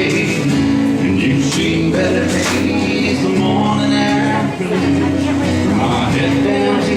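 Music with guitar, steady held chords changing every second or two.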